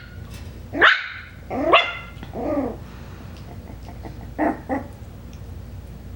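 Five-week-old Coton de Tulear puppy barking in high, sliding yaps: three drawn-out barks in the first three seconds, then two short quick barks about four and a half seconds in.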